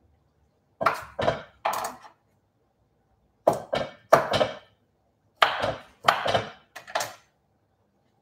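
Kitchen knife chopping watermelon radish on a wooden cutting board: sharp knocks of the blade on the board in three short bursts of quick strokes.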